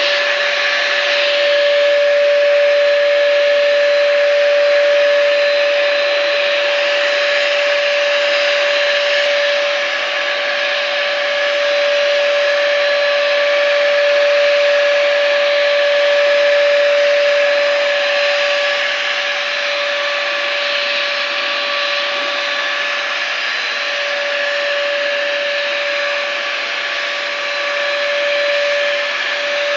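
Electric spray gun running steadily while spraying primer: a continuous motor whine over a hiss of air.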